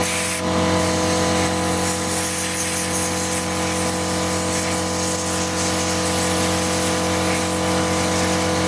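A motor running steadily at constant speed, a fixed hum over a hiss.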